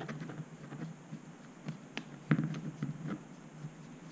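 Light clicks and taps of a carbon-fibre FPV drone frame, its 3D-printed canopy and a small screwdriver being handled, with one louder knock about two and a half seconds in.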